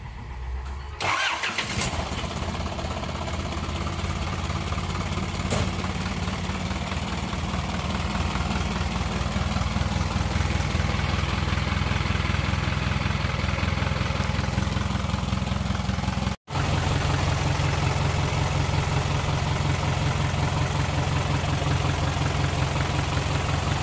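Isuzu 4HF1 four-cylinder diesel engine starting about a second in, then running steadily at idle. The sound drops out for an instant about two-thirds of the way through.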